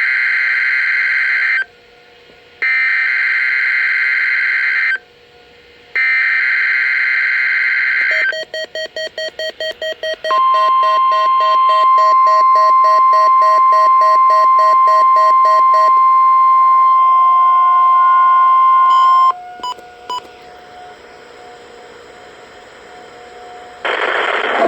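NOAA Weather Radio weekly test alert on a Midland WR100 weather radio. Three harsh buzzing bursts of SAME digital header data, each about two seconds long, are followed by fast beeping at about four to five a second. Then comes the steady 1050 Hz warning alarm tone, held for about nine seconds with beeping under its first half, ending in a few short blips.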